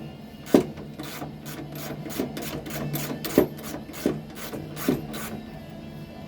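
Socket ratchet clicking in quick strokes, with a few louder knocks, as a motorcycle's rear shock absorber bolt is undone.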